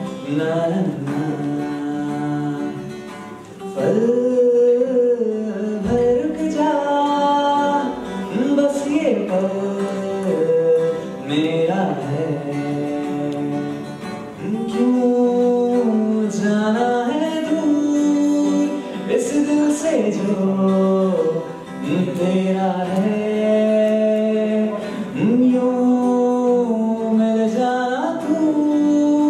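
A man singing a slow melody to his own acoustic guitar accompaniment.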